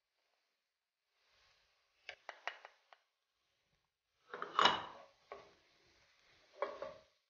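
Wooden spatula stirring in a frying pan of onions and tomato paste, knocking and scraping against the pan, with a few light taps about two seconds in and a louder clatter just before five seconds.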